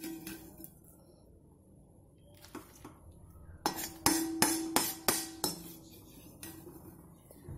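Steel perforated skimmer ladle scraping and knocking against an iron kadai while scooping out dry-roasted coriander seeds. A run of clinks comes from about three and a half to five and a half seconds in, and the pan rings after each strike.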